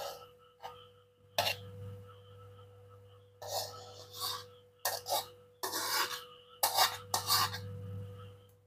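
A metal spatula scrapes a metal wok as stir-fried vegetables are tipped out into a bowl. It makes a series of irregular rasping scrapes, with a steady faint hum underneath.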